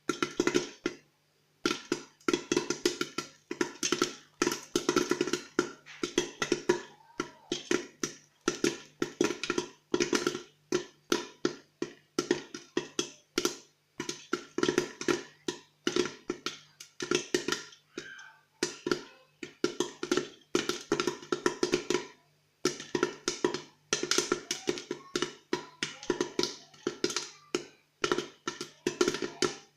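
Popcorn kernels popping in hot oil in a covered thick-bottomed pot on high heat: rapid, irregular pops and taps against the lid and pot, coming in dense clusters with brief lulls.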